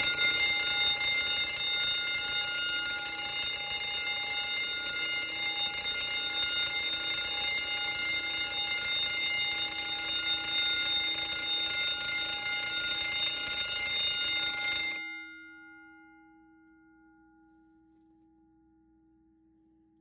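Simplex 4080 10-inch fire alarm bell, rated 24 to 28 volts DC, ringing continuously at a steady loud level with a healthy, clean ring. About 15 seconds in the power is cut and the gong rings on, fading away over a few seconds.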